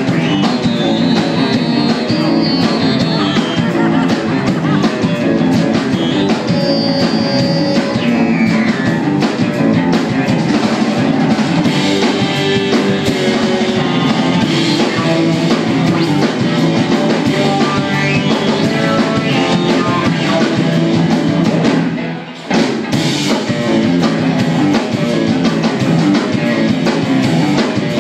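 Live rock band playing an instrumental passage with electric guitar, bass guitar, keyboard and drums, heard through the room. The music briefly drops out for a moment about three quarters of the way through, then comes back in.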